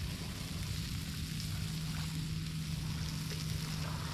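Barracuda fillet and onion slices sizzling on a portable griddle, a steady crackling hiss over a constant low hum, with a few faint taps.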